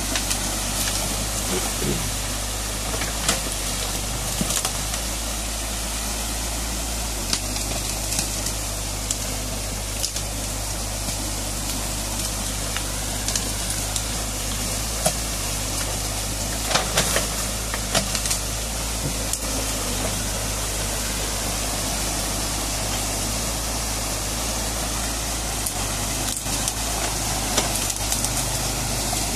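Muddy stream water rushing steadily through a fresh breach in a beaver dam, with an excavator's engine running low underneath. A few short sharp clicks and cracks stand out here and there.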